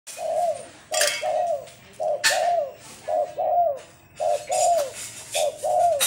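Spotted dove cooing: a repeated two-part coo, a short note followed by a longer falling note, about once a second, five or six phrases in all.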